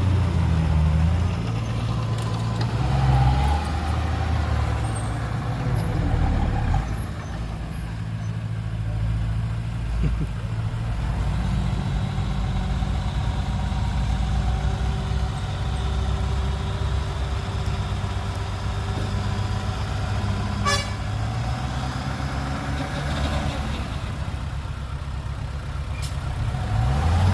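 Diesel engines of earthmoving machinery running, the engine note stepping up and down as the load changes, with a short rattle about twenty seconds in.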